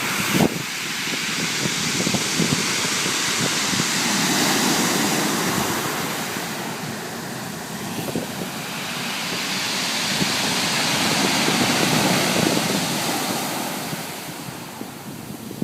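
Waves surging up a pebble beach and drawing back, the stones rattling and clicking in the wash. Two surges swell and fade, one about four seconds in and a louder one about twelve seconds in.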